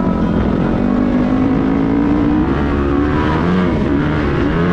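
Dirt bike engine under way, heard from the rider's position, its pitch climbing steadily for about two and a half seconds, then dropping and swinging up and down with throttle changes over a low rumble.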